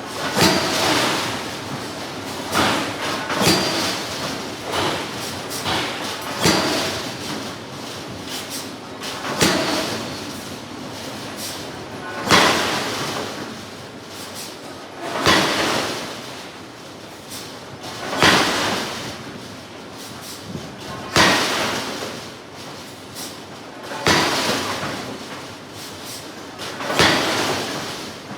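Heavy blows of a large hydraulic forging hammer on steel, one about every three seconds, each fading away over a second or so, with a few lighter knocks in between.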